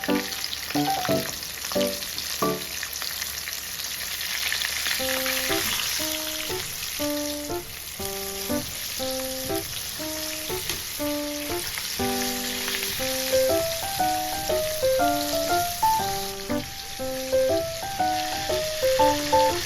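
Food frying in a pan with a steady sizzle that grows stronger a few seconds in. Light background music, a melody of short notes, plays over it.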